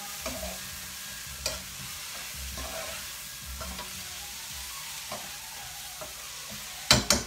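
Bora (yard-long beans) frying in a pan with a steady sizzle, a few light clicks through it. A quick clatter of sharp knocks near the end.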